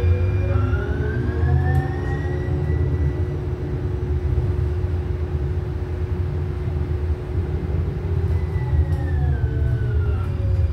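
Electric light rail train heard from inside the car: the traction motors whine, rising in pitch as the train pulls away, holding steady at speed, then falling as it slows about eight seconds in. Underneath runs a low rumble from the running gear.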